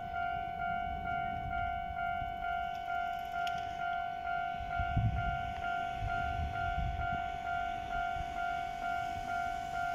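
Japanese railway level crossing's electronic warning bell ringing in a steady, rapid rhythm, about three strokes a second, with a low rumble beneath.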